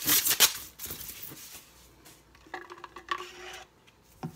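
Blender parts and packaging being handled: a burst of rustling and clatter at the start, then scattered light clicks and a knock near the end.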